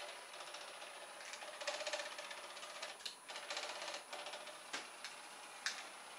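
Small electric propeller motor of a homemade RC boat running in short stop-start bursts as it is driven, with a rapid buzzing rattle. A few sharp clicks come in the second half.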